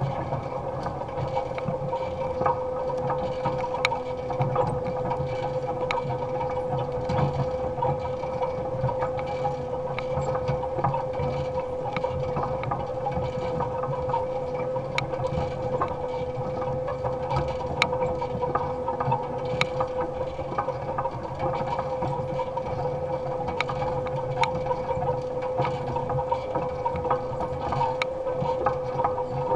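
Electric drive motor of a converted Allis-Chalmers Model G tractor running with a steady whine while cultivating with a basket weeder, over a low rumble and scattered clicks and rattles.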